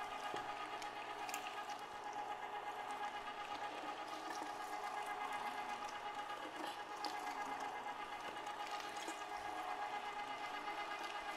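Electric meat grinder running steadily, a motor hum with a steady tone and a few light ticks, as it pulls chilled moose, beef chuck and pork back fat through the coarse grinding plate.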